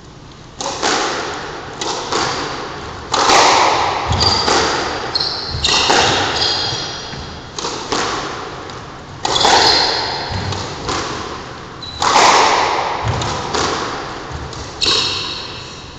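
A squash rally: the ball cracks off rackets and the court walls about every one to two seconds, each hit echoing around the enclosed court, with high squeaks of shoes on the wooden floor between shots.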